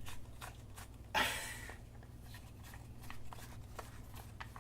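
Handling of small plastic parts: a few light clicks and taps, with a short scraping rustle about a second in, over a faint steady low hum.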